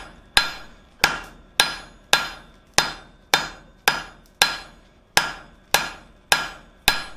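Hand hammer striking a red-hot flat steel bar on the horn of an anvil, a steady rhythm of blows a little under two a second. Each blow rings briefly. The blacksmith is drawing out and necking down the stem of a forged leaf.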